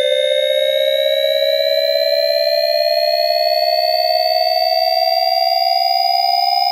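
Synthesized riser sound effect: a chord of steady electronic tones slowly rising in pitch.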